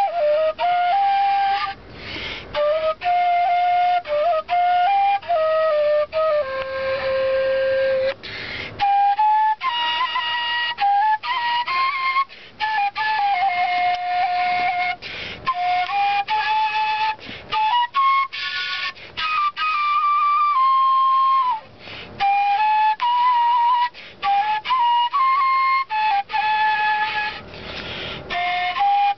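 Kaval, the Bulgarian end-blown wooden flute, playing a solo melody. The tune moves up and down in short phrases, with brief pauses for breath between them.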